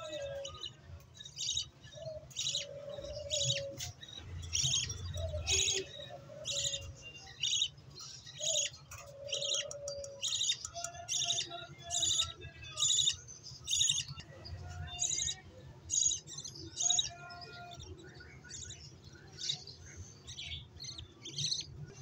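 Budgerigar chicks giving short, repeated begging chirps, about two a second, that grow fainter over the last few seconds. These are the food-begging calls of hungry nestlings.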